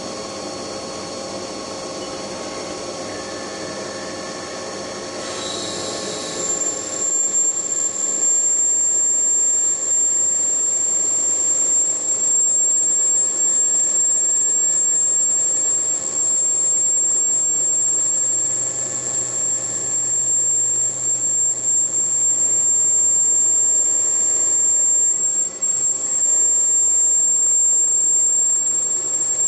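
CNC machine tool running while machining a cylinder: a steady machine hum with several constant tones. About six seconds in, a loud, high, steady whine comes in and everything grows louder, then holds steady.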